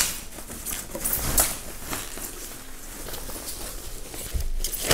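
Thin plastic bag crinkling and rustling as it is pulled off an electric bass guitar, in several crackly sweeps.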